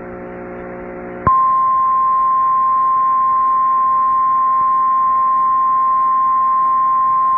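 Emergency alert attention signal: a quieter buzz of several steady low pitches, then about a second in a loud single steady tone of roughly 1050 Hz starts and holds. This is the National Weather Service warning alarm tone that comes before a spoken weather warning.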